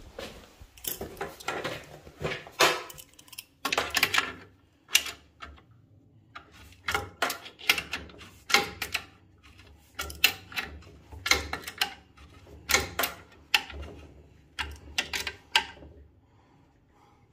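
A small ratchet spanner clicking in short bursts of a few quick strokes, over and over, as screws at the fan of a Worcester Bosch Greenstar 12i combi boiler are worked during a replacement of the faulty fan.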